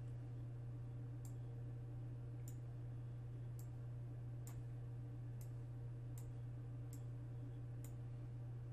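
Computer mouse button clicking, about eight sharp clicks roughly one a second, over a steady low hum.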